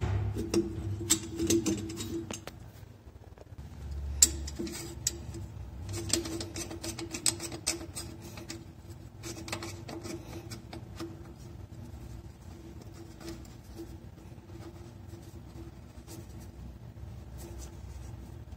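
Light clicks and scratchy scrapes of a brass water-mixer fitting being turned and threaded by hand, denser in the first half, over a faint steady hum.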